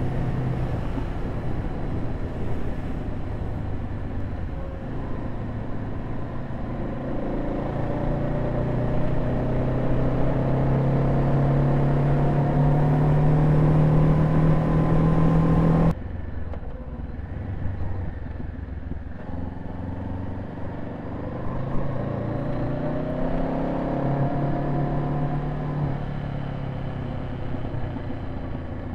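Honda CB500F's parallel-twin engine running under way, over wind and road noise. Its pitch climbs steadily as it accelerates through the first half. About halfway the sound drops suddenly in level and goes duller, and the engine then rises and falls in pitch through the rest.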